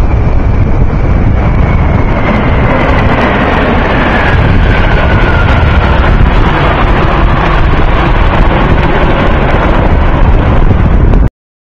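Jet engines of a formation of five military jets passing overhead: a loud, steady rumble with a whine that falls in pitch over the first few seconds as they go by. The sound cuts off suddenly near the end.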